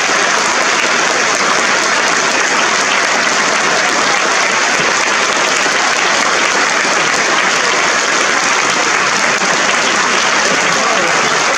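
A theatre audience applauding steadily: the dense, even clatter of many hands clapping at once, with no break.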